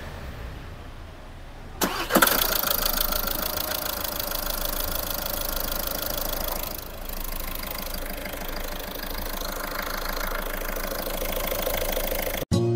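Seat Leon's 1.6 TDI four-cylinder common-rail diesel engine cranks and catches about two seconds in, then idles steadily. This is the first start after a new timing belt and water pump were fitted. The sound cuts off abruptly just before the end.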